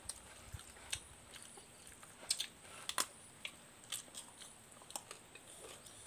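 Close-up chewing and biting of food, with irregular sharp crunches of raw vegetables and herbs.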